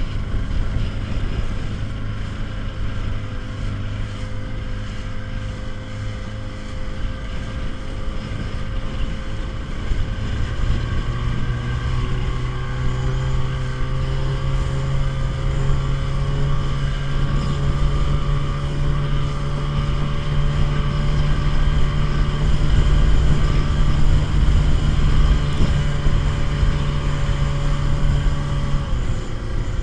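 Small motorboat's engine running under way, with wind buffeting the microphone. About a third of the way in the engine speeds up and holds a higher steady pitch, then eases off near the end.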